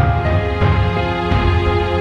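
Background music: sustained melodic notes over a heavy bass line that comes in at the start.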